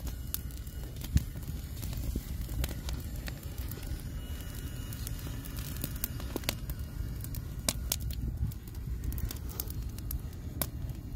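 Wood fire crackling, with scattered sharp pops and snaps over a steady low rumble.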